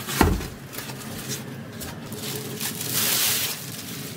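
Packaging being handled: a thump just after the start as the polystyrene foam lid is moved, a few light knocks, then a plastic bag rustling for about half a second around three seconds in as the monitor is drawn out of it.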